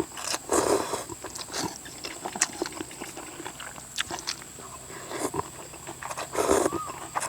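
A person eating rice noodles in coconut-milk curry close to the microphone: irregular slurping and chewing noises with scattered sharp clicks, the loudest bursts about half a second in and near the end.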